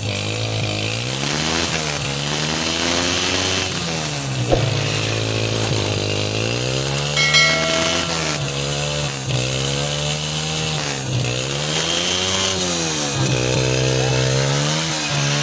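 Honda CG125's single-cylinder four-stroke engine being revved over and over, its pitch climbing and dropping back about seven times.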